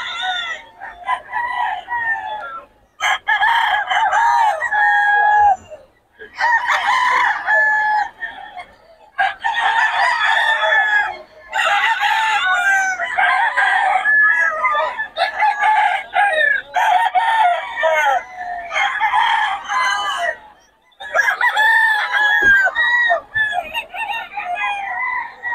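Gamecocks crowing again and again, about ten crows one after another, some overlapping, with only brief gaps between them.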